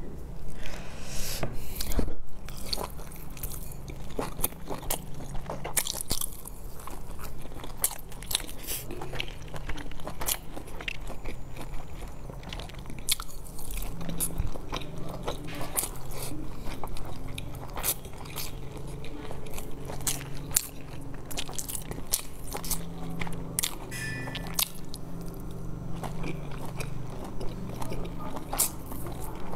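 Close-up eating sounds: a person biting into large stuffed buns with fried skins (you tiao da bao) and chewing, with many short mouth clicks, over a steady low hum.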